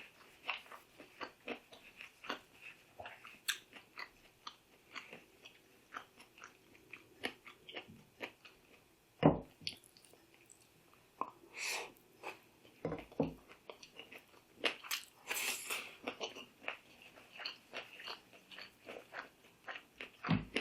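Close-miked chewing and crunching of food, crisp green mango salad and fried fish, in many small irregular crunches, with a few louder knocks spread through.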